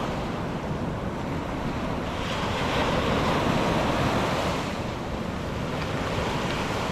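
Surf washing, with one wave swelling about two seconds in and easing off about five seconds in, and wind buffeting the microphone.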